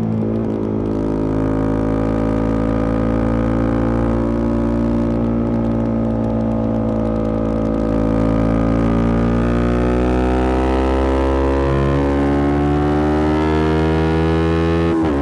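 Yamaha R125's single-cylinder four-stroke engine through a Black Widow aftermarket exhaust, pulling steadily under way. Its pitch climbs slowly through the second half as the bike gathers speed, with a quick dip and recovery near the end, like a gear change.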